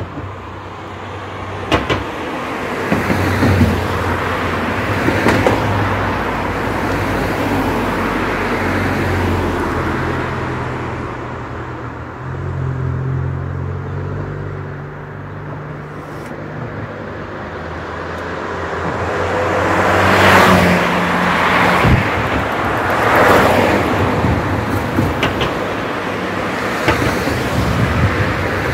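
Road vehicle engine running, with traffic noise that swells twice about two thirds of the way through.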